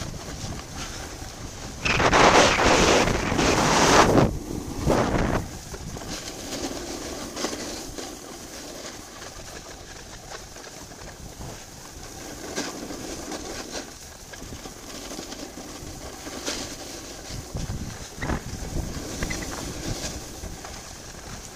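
Wind rushing over the microphone on a fast run down a groomed ski slope, with the hiss of edges sliding on packed snow. A loud scraping rush starts about two seconds in and lasts about two seconds, with a shorter one just after: edges biting into the snow in hard turns.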